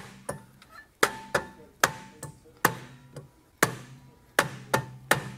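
A hammer striking the rear brake rotor of a BMW E36 M3 to knock it off the hub: about a dozen blows at an uneven pace of roughly two a second, several followed by a short metallic ring from the rotor.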